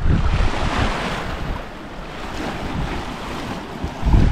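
Wind buffeting the microphone over the rush of waves along a sailboat's hull while under sail. The low wind rumble eases after about a second and a half, leaving the hiss of the water, and comes back near the end.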